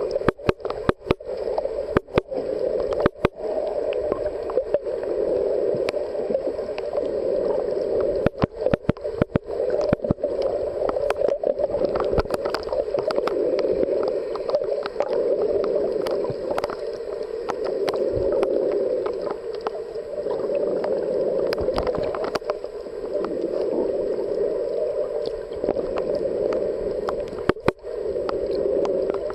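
Muffled underwater noise heard through a camera's waterproof housing: a steady dull rush of water, broken by scattered clicks and brief dropouts, in clusters near the start, about a third of the way in and near the end.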